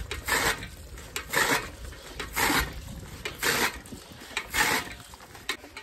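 Hand-cranked chaff cutter with an iron flywheel chopping green fodder: a short rasping chop about once a second as the blade slices through the grass being fed in.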